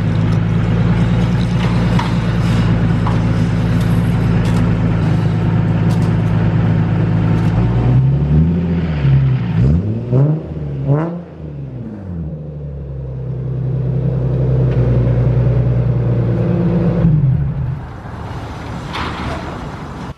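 Nissan 350Z's 3.5-litre V6 running steadily under way. About eight seconds in, the revs rise and fall several times in quick succession, then settle, and the engine drops back to a lower, quieter note near the end.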